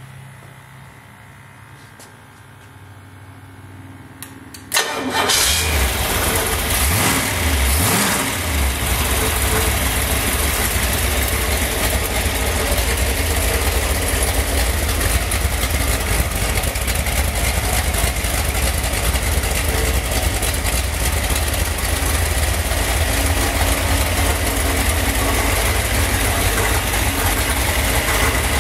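Freshly built Pontiac 463 cubic inch V8 crate engine being test-started: a few seconds of quiet, then it fires up suddenly about five seconds in. It runs unevenly for a few seconds, then settles into steady running.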